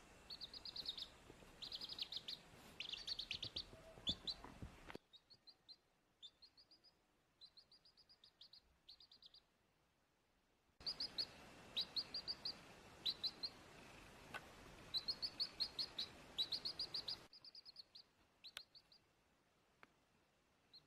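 A young domestic chick peeping: quick runs of short, high peeps, each falling in pitch, in clusters with short pauses between them. The background hiss drops away and comes back abruptly a few times.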